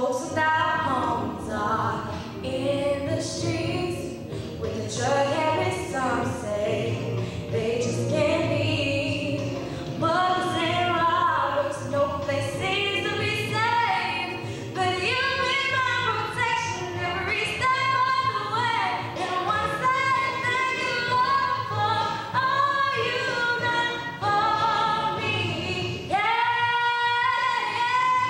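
A young woman singing a song over a backing music track. Near the end she holds one long, steady note.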